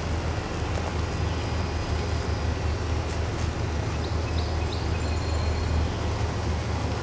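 Steady low rumble, with a few faint light clinks about four to five seconds in as a metal canteen cup is lifted off its stove by its wire handle.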